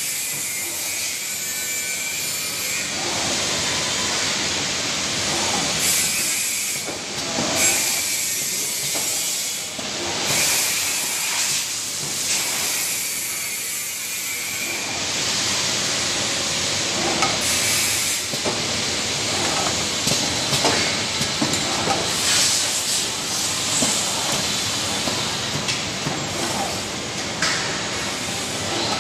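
Automatic cartoning machine running: a steady mechanical hiss with irregular clicks and knocks from its moving parts.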